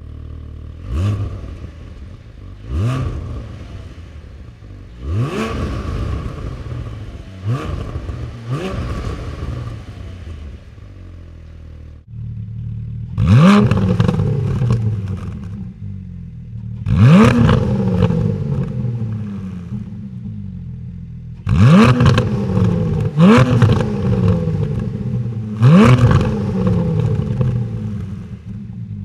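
2020 Porsche 718 Cayman GT4's 4.0-litre engine idling and being blipped in short free revs, each rev climbing quickly and falling straight back to idle. Five revs come in the first twelve seconds; then the idle turns louder and five louder revs follow, as the exhaust setups are compared.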